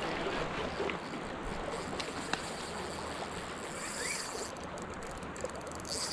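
River water rushing steadily, with a couple of faint clicks.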